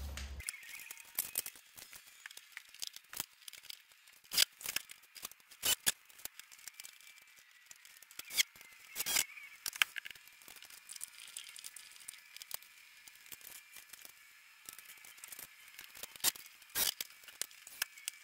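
Irregular clicks, taps and rustles of parts and tools being handled, with no steady rhythm.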